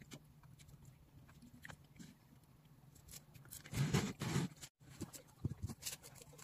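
A metal spoon clinking and scraping in a paper bowl, with faint eating sounds, then a louder spell of clatter about two thirds through as the spoon is set down in the bowl. A few soft knocks follow near the end.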